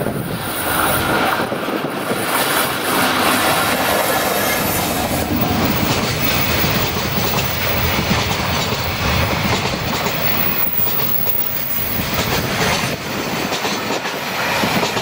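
Freight train hauled by a JR Freight EF65 electric locomotive passing close by, its container wagons rolling past with a steady rumble and wheels clacking over the rail joints.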